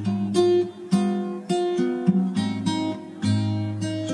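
Background music on acoustic guitar: plucked and strummed notes changing every fraction of a second.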